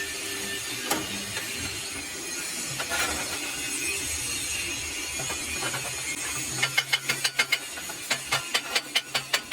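Steady workshop hiss with scattered clicks. About seven seconds in it gives way to a rapid run of sharp metallic taps, about five a second: a chipping hammer knocking slag off a stick weld.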